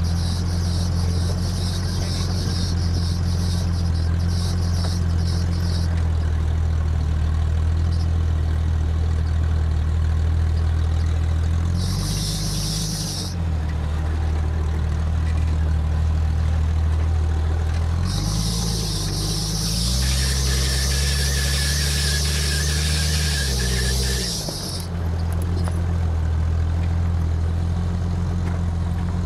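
A 4x4's engine running as it drives along a dirt track, its note dropping and stepping back up with changes of speed around the middle. Spells of loud hiss come and go over it, and a thin high squeal sounds for a few seconds about two thirds of the way through.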